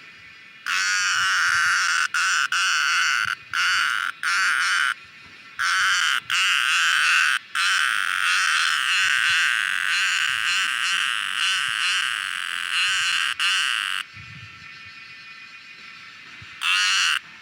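Cicada calling: a loud, harsh buzz that comes in several bursts with short breaks, then runs unbroken for several seconds before cutting off, with one more short burst near the end.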